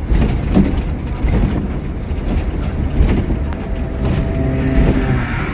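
Steady vehicle rumble beside a toll road, heaviest in the low end and without clear strokes or impacts.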